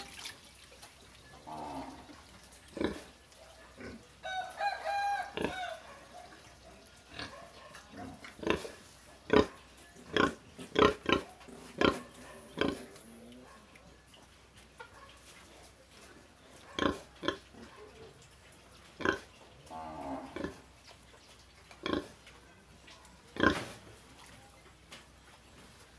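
Domestic pig grunting: short grunts come at irregular spacing, some in quick runs, with a longer, higher, drawn-out call about four to six seconds in.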